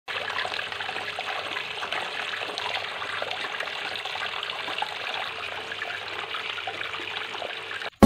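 A homemade cement tabletop fountain's thin stream of water falling onto pebbles in its basin, splashing and trickling steadily.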